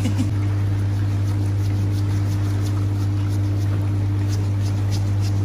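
Steady low hum of a pedicure chair's built-in back massager running, with faint repeated rasping strokes of a paddle foot file scrubbing the sole of a foot.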